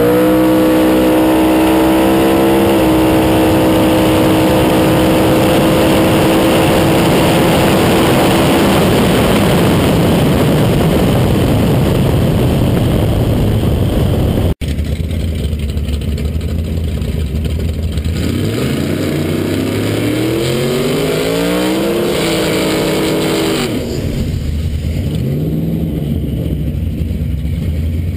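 A 4-litre twin-turbo V8 in a drag-raced 1970 Ford Capri, heard from a camera on the car. It launches into a loud, high, nearly steady full-throttle note with a small dip in pitch about three seconds in, holds for roughly nine seconds down the quarter mile, then gives way to rushing wind and road noise. After a break, the same engine pulls up through the revs on the road, drops back about nine seconds later, and runs on at a lower note.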